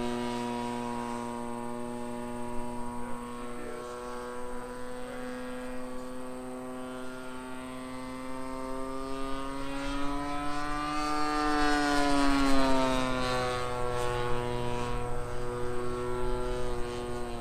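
Small single-cylinder 20cc gas engine of an RC Piper Cub airplane running in flight with a steady buzzing note. Its pitch climbs, peaks about eleven or twelve seconds in, and then eases back down. It is loudest just after the pitch peaks.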